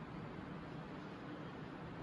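Steady low background hiss with a faint hum: room tone, with no distinct sound standing out.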